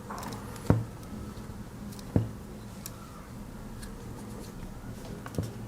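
Hands handling a Swiss Army knife and its small removable pin. There are two sharp clicking knocks, one about a second in and one about two seconds in, a lighter knock near the end, and faint ticks between them.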